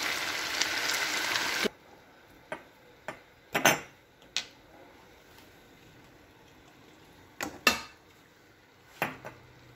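Chopped vegetables sizzling in hot oil in a frying pan, a steady hiss that cuts off suddenly after about a second and a half. Then a few scattered knocks and scrapes of a wooden spatula against the pan as the vegetables are stirred.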